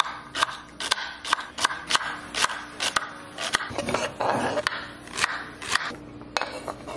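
A kitchen knife chops celery on a wooden cutting board in quick, even strokes, about three a second. Around four seconds in it gives way to the knife scraping the diced celery off the board into a bowl, with a few light taps.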